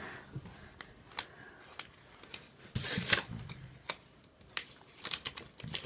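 Rustling and crinkling of a small folded paper slip being handled and unfolded, a scatter of short rustles and light clicks with a small cluster about three seconds in.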